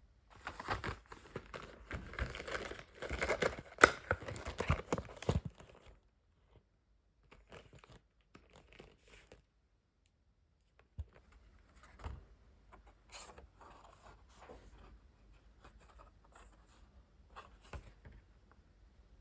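Crinkling and rustling of packaging being handled for about five seconds, then scattered quieter clicks and taps of pens or marker caps being handled.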